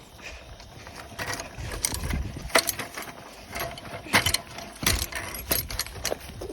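Irregular rattling and clunking of a small vehicle jolting over rough ground, a string of sharp knocks with several loud bangs, from a frame with no suspension bouncing up and down.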